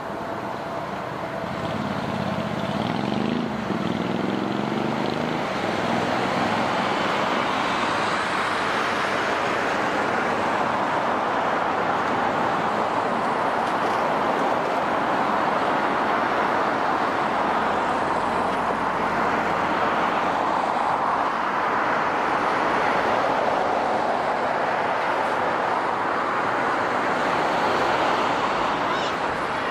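Jet engines of a Boeing 777-200ER airliner at takeoff power during the takeoff roll and climb-out: a steady, loud rushing roar that swells about two seconds in and then holds.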